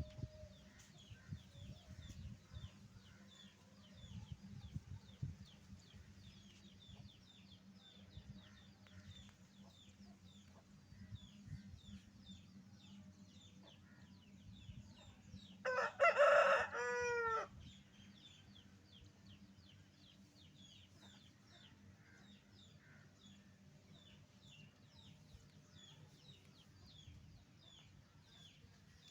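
Rooster crowing once, about halfway through: a single loud cock-a-doodle-doo lasting under two seconds that falls in pitch at the end. Faint high chirps repeat throughout over a low background rumble.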